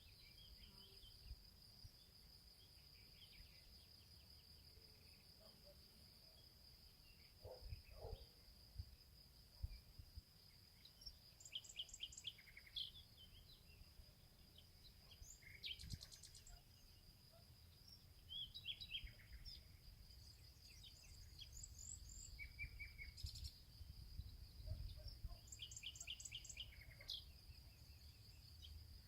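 Faint rural ambience: a steady high-pitched insect drone, with scattered bird chirps and calls coming in more often from the middle on, over a low rumble.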